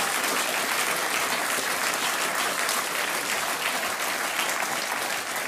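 Studio audience applauding steadily, dying down slightly near the end.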